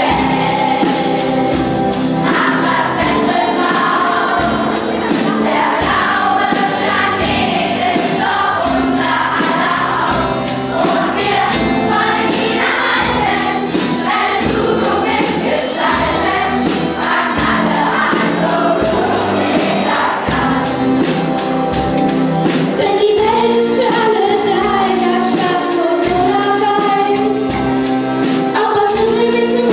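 Children's choir singing a pop song over a backing with a steady beat, with a couple of lead voices on microphones.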